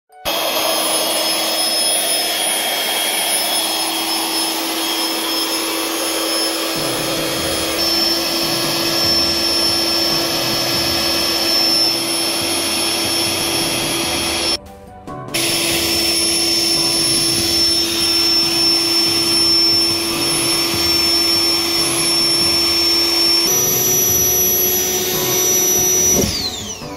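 Built-in electric pump of an iDOO double air mattress running as it inflates the mattress: a loud, steady whirring hum with a constant whine. It drops out briefly about halfway, its pitch steps up slightly near the end, and then it falls in pitch as the pump shuts off.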